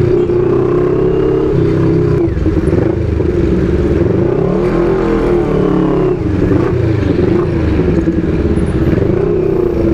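A CFMoto 400NK motorcycle's parallel-twin engine running while the bike rides in traffic, its pitch rising and falling with the throttle.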